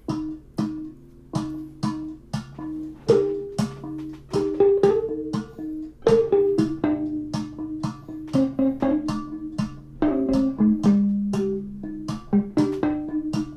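Muted electric guitar playing a melody and a repeating rhythm over a steady pattern of sharp percussive hits from propane tank recordings, about two to three hits a second, layered together as one short music piece.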